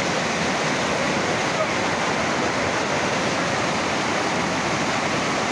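Muddy floodwater rushing and churning through a narrow gap between buildings: a steady, loud rush of fast-moving water, a street flash flood running like a river.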